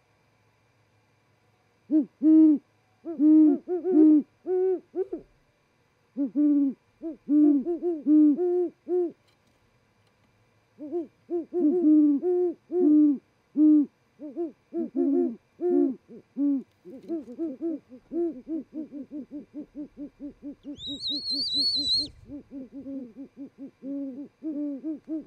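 A pair of great horned owls hooting in duet: deep hoots in phrases that begin about two seconds in, the two birds' hoots overlapping in a rapid run in the second half. Near the end a high squeal lasting about a second sounds over the hooting, with a low fluttering rumble beneath it, as the pair mates on the perch.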